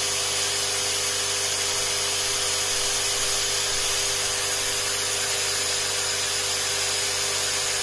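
Hiblow HP80 linear diaphragm air pump running steadily: a constant electric hum with an airy buzz on top.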